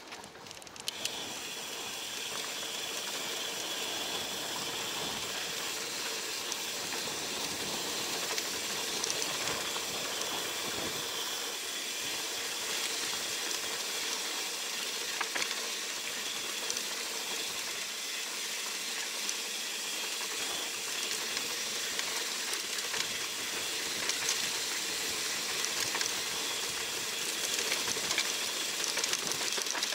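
Steady rushing hiss of wind on the microphone and tyre noise from a mountain bike riding dirt singletrack, rising about a second in, with scattered small clicks and rattles.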